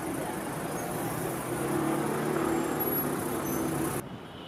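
Steady motor-vehicle noise with a low engine hum, which cuts off suddenly near the end.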